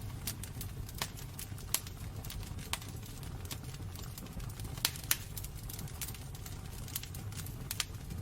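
Wood burning in a fireplace, crackling: irregular sharp pops and snaps over a low, steady rumble of flames, with two louder pops close together about five seconds in.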